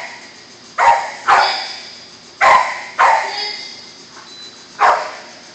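A dog barking five times, in two pairs and then a single bark, each bark ringing on in a long echo off a large bare hall.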